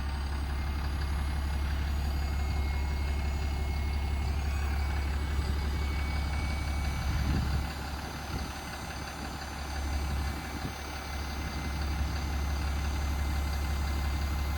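Electric-over-hydraulic truck crane running from its wireless remote: a steady low hum from the electric hydraulic pump as the crane rotates, dipping briefly twice a little past halfway as the function stops and starts again.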